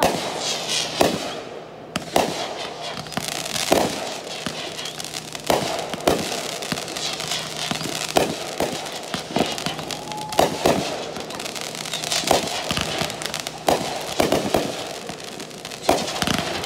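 Aerial fireworks going off: an irregular run of sharp bangs, about one or two a second, from shells launching and bursting, with crackling between them.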